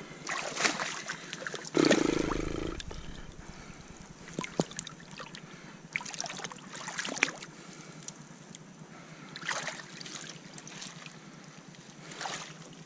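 Shallow rock-pool water splashing and sloshing as hands work through it among kelp, in short irregular bursts, with a louder, deeper thump about two seconds in.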